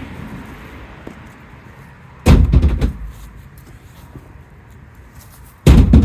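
Two heavy thuds, a little over three seconds apart, each with a short low rumble after it, as firewood logs are thrown into a truck.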